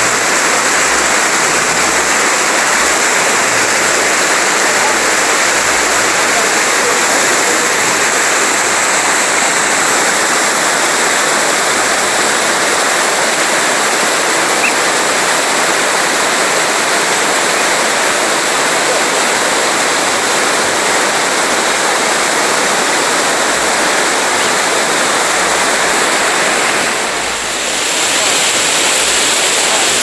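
Loud, steady rush of white water from river rapids and a waterfall, dipping briefly near the end.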